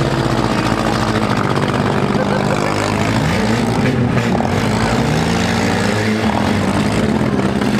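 Several compact-car engines running at once in a demolition derby heat, two of them revving up through the middle as the cars drive into each other.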